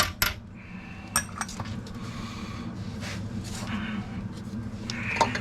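Light hammer taps on a seized steel brake line fitting, stopping within the first second. Then scattered metallic clinks and soft scraping of hand tools working the fitting.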